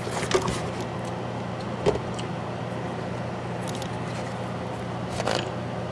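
Steady low hum of background noise, with a few faint clicks and taps as fingers handle a timing belt on the cam sprocket, the sharpest just under two seconds in.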